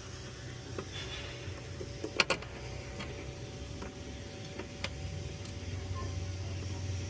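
Hand tools clicking and clinking on metal while bolts are done up: a few scattered light ticks, with two loud sharp clicks close together about two seconds in.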